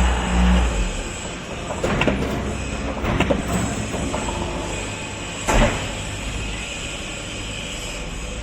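Hydraulic concrete block-making machine running: a steady low hum of its hydraulic power unit, with a heavy low rumble at the start and sharp metallic knocks about two, three and five and a half seconds in.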